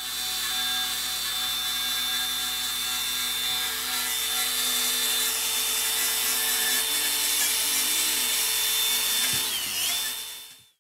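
Angle grinder running steadily with a high whine, its spinning wheel scouring soot and rust off a cast-iron wood-stove panel. Near the end its pitch dips and it winds down to a stop.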